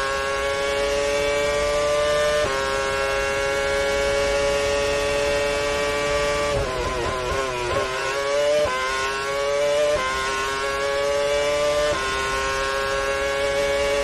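Engine of a 2010 Renault Formula One car, a 2.4-litre V8 at high revs, heard from the onboard camera. The pitch climbs steadily through each gear with quick upshifts about two seconds in and again near the end. Around the middle the revs fall and waver for about two seconds, then climb again.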